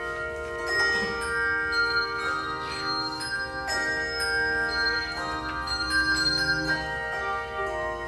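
Handbell choir playing a piece: many handbells struck in turn, their notes ringing on and overlapping into sustained chords.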